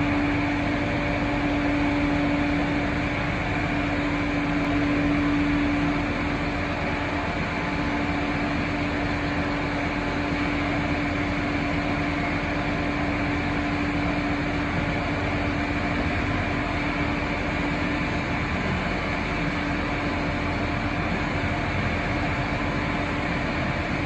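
Blanchard 72HD-120 rotary surface grinder running under power with its rotary table turning: a steady mechanical drone with a hum tone that eases slightly about six seconds in.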